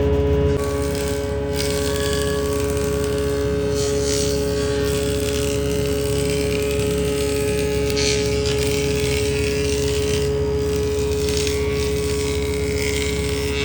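Woodworking machine's electric motor running steadily with a constant hum, with about five short bursts of hissing noise every two to three seconds.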